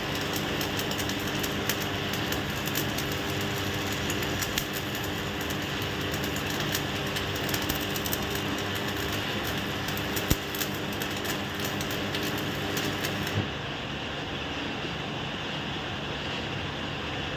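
Electric arc welding on a butterfly valve body: a steady crackling sizzle over a low hum, which cuts off abruptly about thirteen seconds in, leaving a lower steady background noise.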